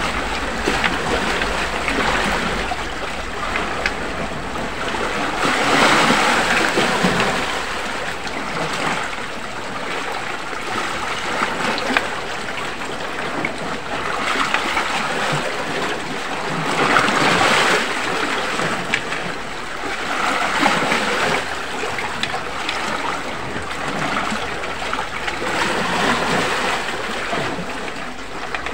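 Sea waves washing against a rocky shore, a steady rush that swells for a second or two every few seconds.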